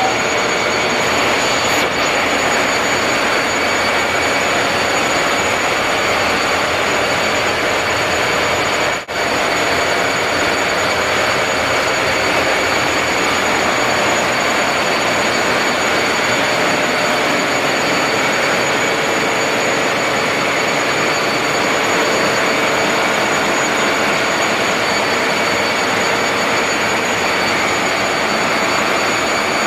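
Loud, steady machinery noise of a ship's engine room, with a few steady high whines over the roar. It drops out for a moment about nine seconds in.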